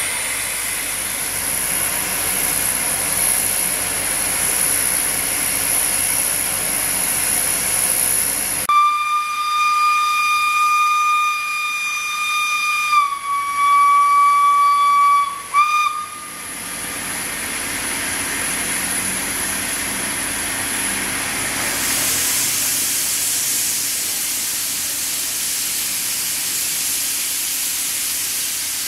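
A State Railway of Thailand Pacific-class steam locomotive hissing steam steadily as it stands. About nine seconds in, it gives one long whistle blast of about seven seconds on a single steady note, which dips slightly in pitch partway and ends with a short blip. The steam hiss then returns and grows louder near the end.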